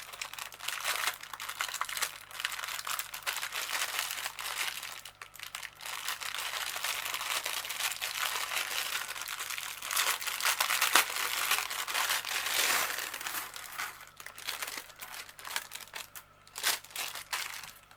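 Plastic packaging crinkling and rustling as a bag of crochet stitch markers is handled, with many small clicks mixed in; louder for a few seconds past the middle and dying down near the end.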